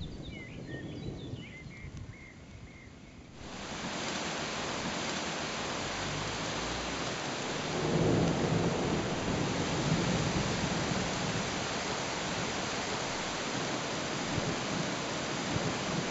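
Heavy rain shower: a steady hiss of rain that starts suddenly a few seconds in, with a low rumble of thunder swelling up about halfway through.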